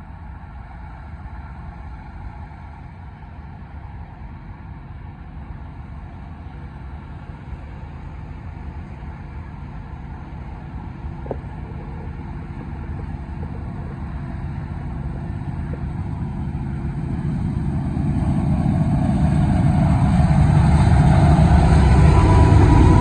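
Diesel locomotives of a Union Pacific double-stack freight train approaching. The low engine rumble grows steadily louder and is loudest in the last few seconds.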